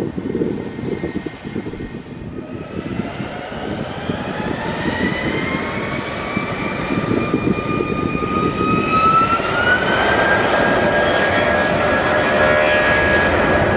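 Aircraft engines spooling up, a whine rising in pitch for several seconds and then holding steady as the sound grows louder, over a steady low rumble: the build-up of power for a takeoff run.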